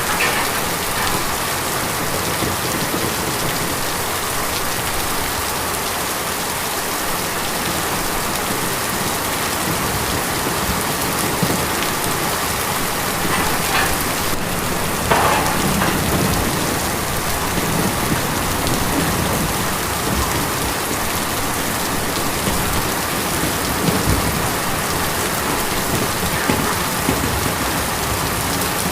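Steady rain falling on a tin roof, an even hiss of many drops with a few brief louder spots.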